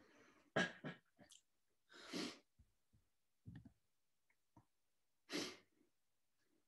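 A woman breathing hard while resting between exercises: three main loud breaths, a second and a half to three seconds apart, with a few faint knocks near the middle.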